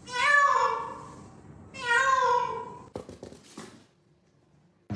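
Domestic cat meowing: two long meows about two seconds apart, followed by a few light clicks.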